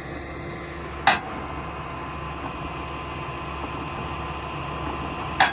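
Diesel engine of a lowboy haul truck idling steadily, with two short sharp knocks, one about a second in and one near the end.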